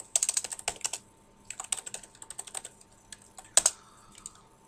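Typing on a computer keyboard: quick runs of key clicks, a short pause after the first second, more keystrokes, and one louder click a little after three and a half seconds.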